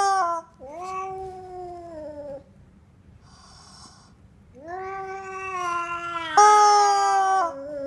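Rubber screaming-chicken toy being squeezed, giving long shrill honking screams. One cuts off just after the start, another lasts about two seconds, and a long one begins about halfway and turns louder near the end, with a short breathy hiss in the gap.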